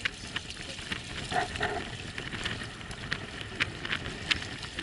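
Small waves lapping and splashing against a small tender's hull, a steady wash broken by many sharp little splashes and crackles.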